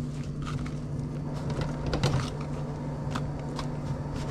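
Hands handling and folding a soft flour tortilla taco on a plastic plate: faint rustles and small clicks, a slightly louder one about two seconds in, over a steady low hum.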